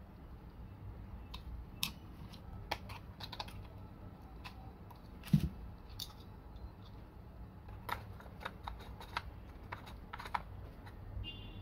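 Fishing reel parts clicking and tapping as they are handled and fitted together by hand, in irregular small clicks, with one louder knock about halfway through.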